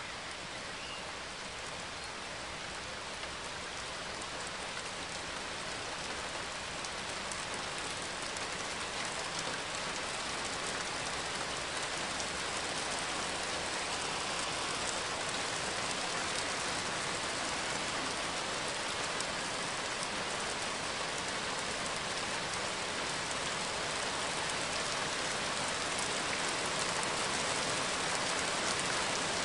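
Steady rain falling: an even hiss of drops with faint scattered ticks, slowly growing louder.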